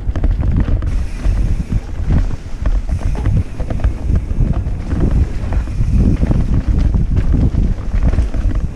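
Wind buffeting a helmet-mounted camera's microphone as a mountain bike rides fast down a rough forest trail, with a constant rumble and many small rattles and knocks from the bike and tyres over the ground.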